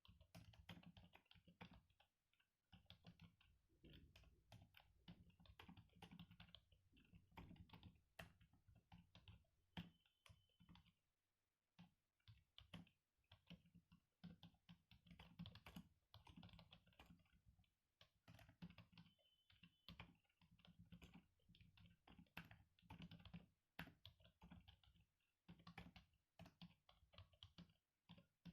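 Typing on an HP 350 compact Bluetooth keyboard: a fast, irregular run of faint key clicks, broken by a few short pauses.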